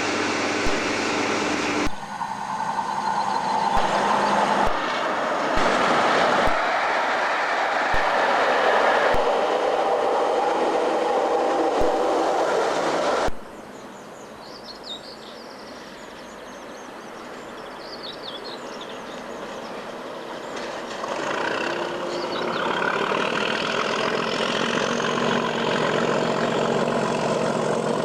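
Diesel-hauled freight trains running past on the mainline, engines and wagon wheels clattering on the rails. The sound breaks off abruptly twice. About 13 seconds in it drops to a quieter stretch with faint high chirps, then a train approaches and grows loud again, with a rising whine over it.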